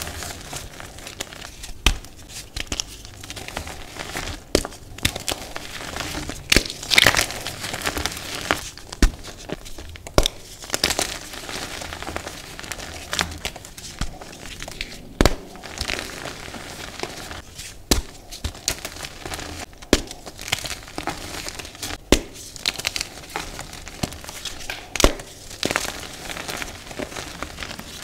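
Hands crumbling and crushing chunks of dyed green reformed gym chalk in a pile of chalk powder: a continuous dry rustle and grind of powder, broken every couple of seconds by sharp crunches as pieces snap apart.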